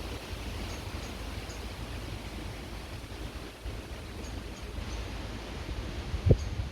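Creek water running with a steady rush, under a low wind rumble. Faint short high chirps come through several times, and a brief low thump sounds near the end.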